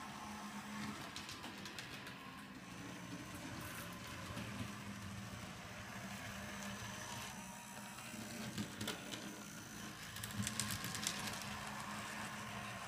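HO scale PCC streetcar model running on its track: a steady low motor hum, with scattered light clicks from the wheels and a cluster of clicks near the end.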